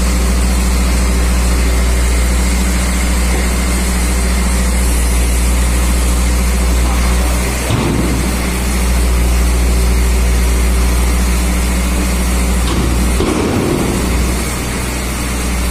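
KAMAZ truck's diesel engine running steadily with a low drone while it drives the hydraulic loader crane. The note shifts briefly about halfway through and again near the end.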